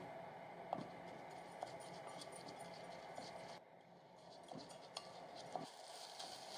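Wooden spatula stirring and scraping soaked rice coated in sesame oil around a pot, faint, with a few light taps of the spatula against the pot.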